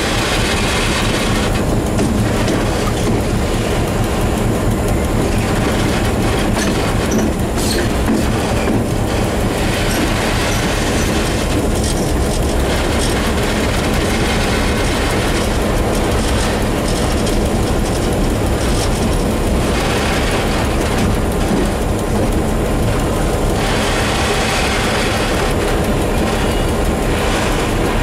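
Series 661 diesel-electric locomotive running along the line, heard from its cab: a steady, loud engine drone mixed with the noise of the wheels on the rails.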